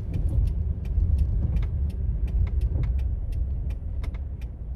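Car cabin noise while driving: a steady low road-and-engine rumble, with many small irregular clicks or rattles over it.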